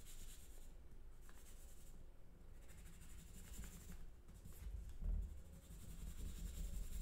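Pencil drawing lines on folded paper, faint scratching strokes.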